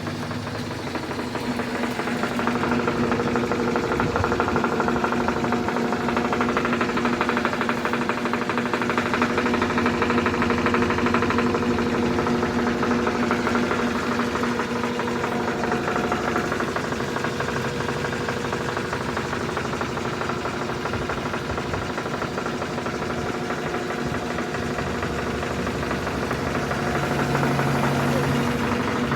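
Consul washing machine in its spin cycle with an abnormal noise: a steady motor hum with rapid knocking over it, building up over the first few seconds as the drum comes up to speed.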